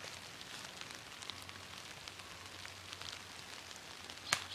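Faint, scattered crackling and ticking in dry leaf litter and spruce branches. About four seconds in, a single sharp, louder crunch of a footstep on dry leaves.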